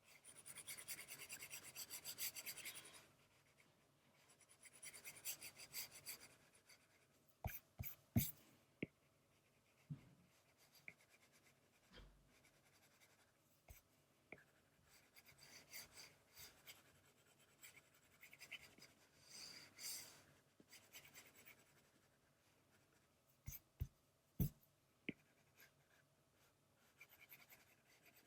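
Faint scratching of a stylus on a digital drawing tablet, in bursts of quick back-and-forth colouring strokes, with a few sharp taps in between.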